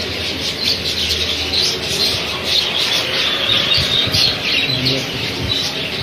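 A shopful of caged small parrots calling all at once: a dense, unbroken run of short high chirps and squawks.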